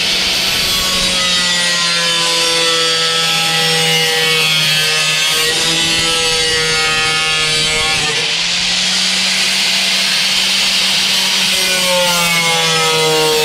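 DeWalt angle grinder with a thin cut-off wheel cutting through a sheet of 6061 aluminum. It makes a steady motor whine under a loud cutting hiss, and the pitch wavers slightly as the wheel is fed along the line.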